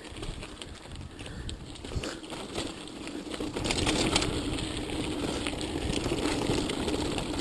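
Mountain bike rolling over a rough dirt and gravel trail: tyre noise with a scatter of clicks and rattles from the bike, growing louder about halfway through.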